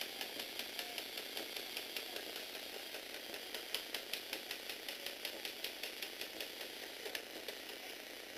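Small Lego Technic electric motor driving the gear train and linkage of a folding mechanism, running steadily with a regular clicking from the gears, about four clicks a second.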